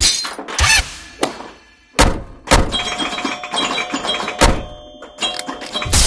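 Edited outro sound effects: a series of sharp thuds and crash-like hits, some leaving a ringing tone behind, over music.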